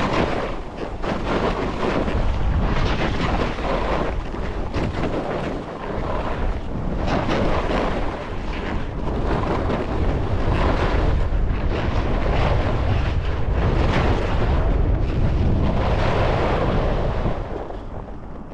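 Wind buffeting the microphone over the rush and scrape of skis on snow during a descent of a steep mogul run, surging and easing with each turn. It dies down near the end.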